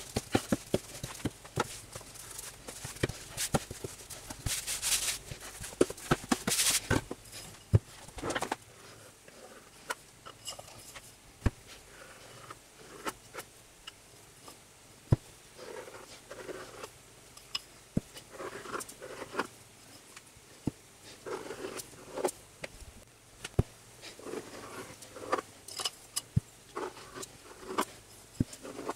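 Wooden-free white rolling pin rolled back and forth over a sheet of pastry on parchment paper, with scraping and swishing of the paper over the floured board. After about eight seconds this gives way to a round cutter pressed down and twisted through the pastry again and again, each cut a short scrape and tap.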